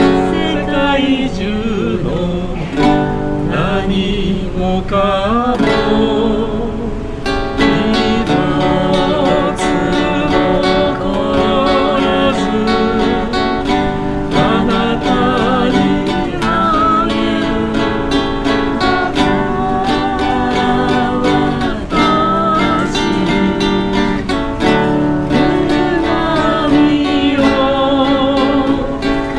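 Acoustic guitar strummed as accompaniment to a man and a woman singing a Japanese folk song together in harmony.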